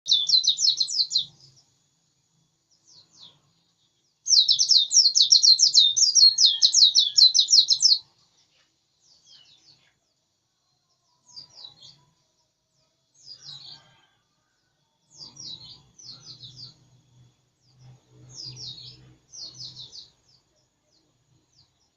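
White-eye (pleci) singing a fast, high-pitched twittering song: a short phrase at first, then a long unbroken run of about four seconds, then shorter snatches every second or two.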